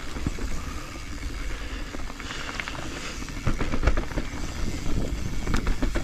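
Full-suspension Commencal mountain bike rolling over a dirt trail: a steady tyre rumble with frequent clicks and rattles from the bike over roots and stones, with heavier knocks about three and a half to four seconds in.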